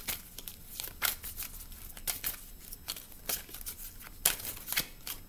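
A deck of tarot cards being shuffled by hand: a run of irregular papery flicks and snaps as the cards slide and knock against each other.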